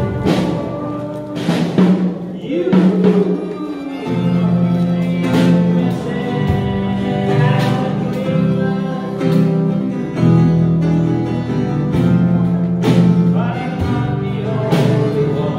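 Music with guitar: sustained low notes with strums or percussive hits every second or two.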